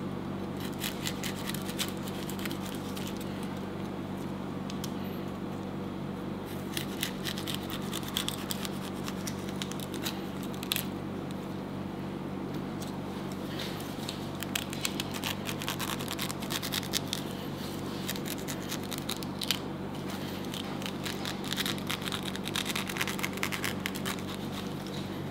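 Knife cutting and scraping into the flesh of a halved pineapple to hollow it out, in irregular runs of short scratchy, crackly cuts.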